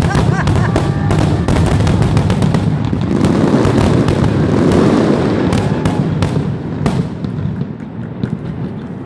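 Barrage of aerial firework shells bursting in quick succession. Many bangs overlap into a continuous rumble with sharp crackling, and the barrage thins out over the last couple of seconds.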